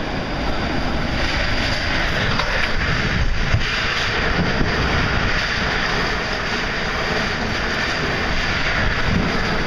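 Violent tornado winds blowing hard: a loud, steady rush of wind and storm noise, with no letup, battering the microphone.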